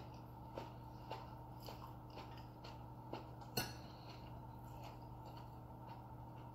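Quiet eating at a table: chewing and scattered small clicks of fingers and food on a plate, with one sharper click about halfway through.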